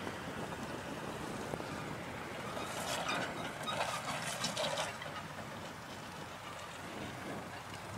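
Off-road truck crawling up a rocky, sandy slope, heard as a steady rushing noise. About three to five seconds in there is a burst of crunching and crackling as gravel and stones give way under its tyres.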